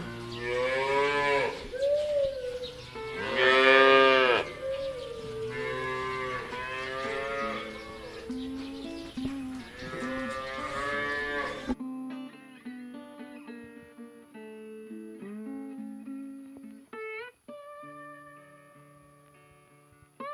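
Cattle mooing in a run of long, pitch-bending calls, loudest about four seconds in, over light plucked-guitar background music. About twelve seconds in the mooing stops abruptly and the music carries on alone.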